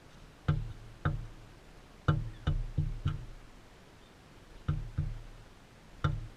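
About eight sharp knocks at irregular intervals, each ringing briefly like a tap on a hollow, resonant surface.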